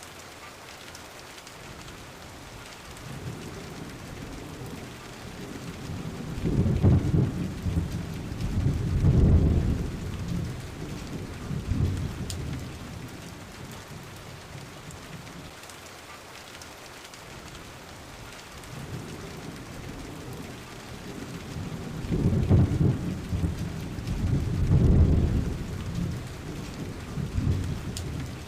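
Steady rain falling, with two long rolls of thunder. Each is a deep rumble that builds over a few seconds, swells twice and slowly dies away.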